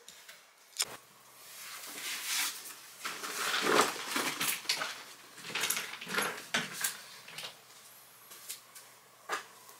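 Rustling and crackling of a garment being handled, with a sharp click about a second in and another near the end.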